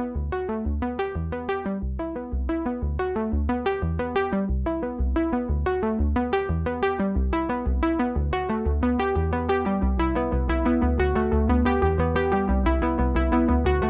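Background music: a synthesizer and keyboard track of quick, evenly repeated plucked notes over a pulsing bass.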